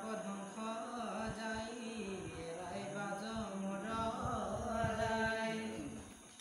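A man's voice chanting scripture verses in a slow, drawn-out tune, holding long level notes, in the manner of Assamese devotional recitation; the chant fades near the end.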